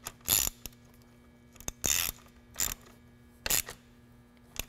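Socket ratchet clicking in several short bursts as a nut is snugged down on the battery's positive terminal.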